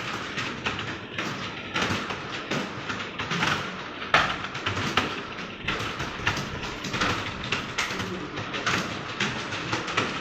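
Computer keyboard keys being struck in fast, irregular typing: a continuous stream of short clicks, several a second.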